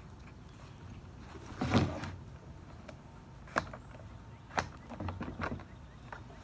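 A hard plastic gun case is handled on a wooden bench. There is a thump about two seconds in, then several sharp clicks as the case is opened.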